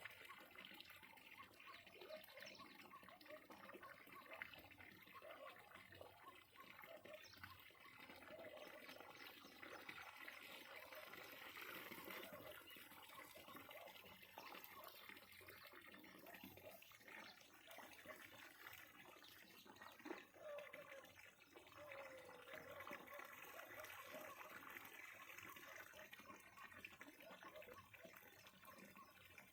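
Faint trickling and splashing water, with many small, irregular ticks.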